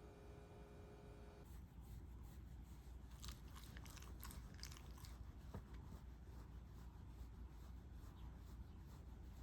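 Faint soft background music that cuts off about a second and a half in, then a run of faint crackling clicks from about two to five seconds in, with one more click shortly after.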